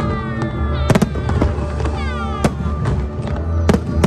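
Aerial fireworks bursting, a handful of sharp bangs with the loudest about a second in, over music played for the show.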